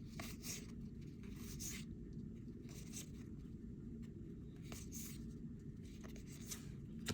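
Faint, soft swishes of trading cards sliding against one another as a pack is flipped through card by card, several irregular strokes over a low steady hum.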